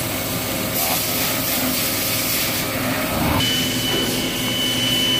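Factory machinery running steadily, a continuous mechanical din with a low hum. A little past halfway a steady high-pitched whine joins in and holds.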